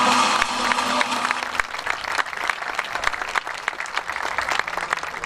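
A live band's music ends about a second and a half in, and an audience breaks into applause.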